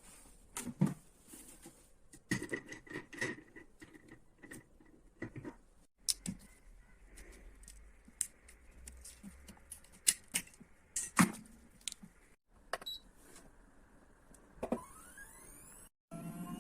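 Small hard doll parts clicking and tapping as they are handled and fitted together, in irregular single clicks and short clusters. Near the end comes a short rising squeak.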